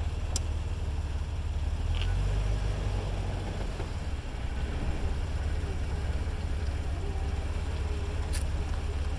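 A Jeep rolling slowly through a turn: steady low engine and road rumble, with a faint wavering tone and a few light clicks from the rear end. This is a noise that comes only while turning and stops when the wheels are straight.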